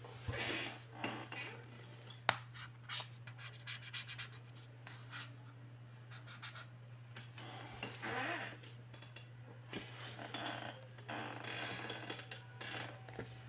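Hands handling a cardboard product box, with fingers rubbing and sliding over the cardboard in irregular rustles. There is one sharp tap about two seconds in, all over a steady low hum.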